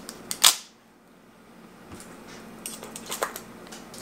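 Hands handling a cardboard skate-frame box: a few sharp clicks and one brief scrape in the first half second, then soft, scattered rustling and taps.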